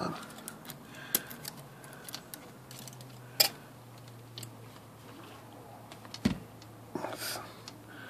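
Small metal parts of an IBM Selectric typewriter clicking and clinking as the cycle clutch pulley hub and its shaft are pushed into place by hand, a few sharp clicks with the loudest about three and a half seconds in. The hub is hanging up and not seating.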